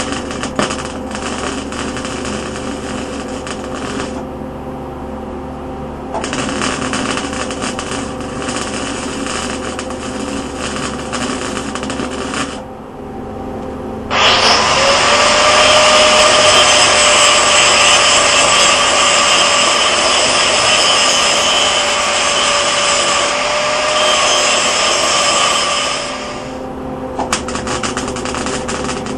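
Wire-feed (MIG) welder arc crackling while beads are laid to build up a worn steel part, in runs broken by short pauses about 4 and 12 seconds in. About 14 seconds in, a louder, steadier sound with a tone that rises briefly and then holds takes over until about 26 seconds in.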